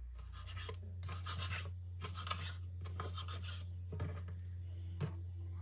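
Raw sliced beef liver being handled on a wooden cutting board: short rubbing and scraping sounds, with a couple of sharp knocks near the end, over a steady low hum.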